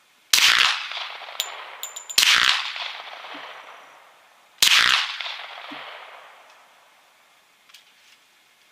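Three shots, about two seconds apart, from a suppressed Glock 20 10mm pistol (SilencerCo Hybrid 46 can), each followed by a long echo that trails off. The rounds are Magtech 180-grain full metal jackets. Set against the slower, quieter HSM load, they come across as supersonic, so each shot still carries the bullet's crack.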